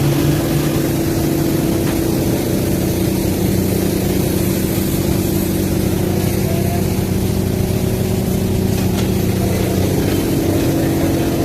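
A steady, low mechanical drone, a motor running without change.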